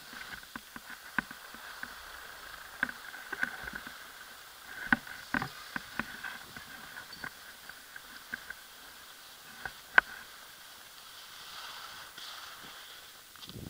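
Skis sliding over packed snow, with scattered sharp clicks and knocks and one louder knock about ten seconds in.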